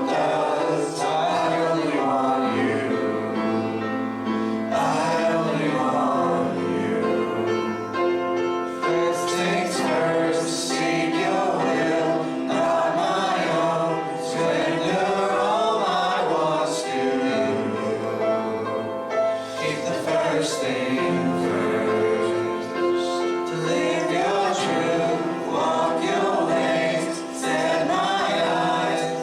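Worship music in church: a group of voices singing a gospel song together, steady and unbroken.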